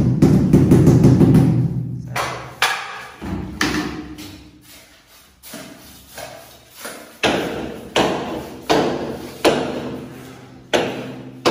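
Background music: a series of struck, decaying notes on a slow, steady beat, dense and loud at first, then sparser.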